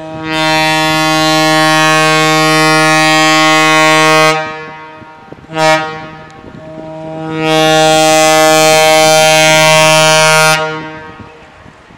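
Air horn of a General Electric diesel locomotive pulling a departing passenger train, sounded in three blasts: long, short, long. It is a steady, loud chord of several pitches.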